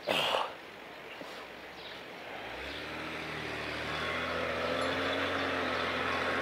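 A motor vehicle approaching, its engine hum growing steadily louder from about halfway in. A brief loud whoosh comes at the very start.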